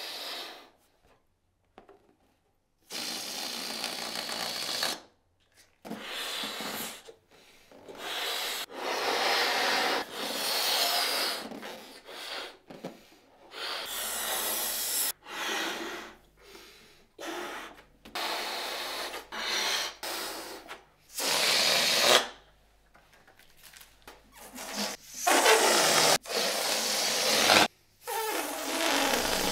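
A person blowing up latex balloons by mouth: a long run of hard breaths forced into the balloon, each one or two seconds long, with short pauses between them to draw breath.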